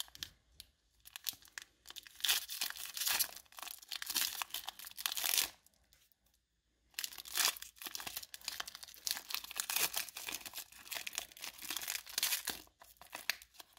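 Foil wrapper of a Hidden Fates Pokémon booster pack being torn open and crinkled by hand. There are two stretches of tearing and crinkling, with a short pause about six seconds in.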